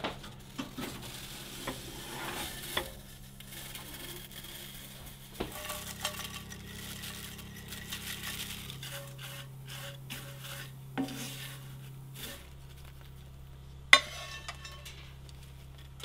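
Kitchen clatter of dishes and utensils: scattered light clinks and knocks, with one sharp, much louder knock near the end.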